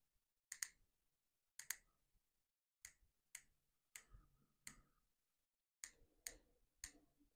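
Discovery Opt ED AR 1-6x24 riflescope's adjustment turret being turned one detent at a time: eleven crisp, distinct clicks, unevenly spaced, some in quick pairs. Each click is one 0.1 milliradian step, 1 cm at 100 m.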